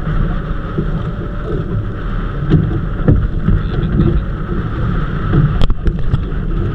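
Strong southwest monsoon (habagat) wind buffeting the microphone on a small boat at sea, a steady heavy rumble. There is a single sharp knock about five and a half seconds in.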